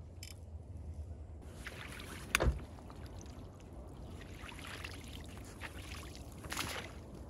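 Water splashing and dripping from a mesh fish keep net lifted out of the shallows, in uneven bursts that are strongest near the end. A single sharp knock about two and a half seconds in is the loudest sound.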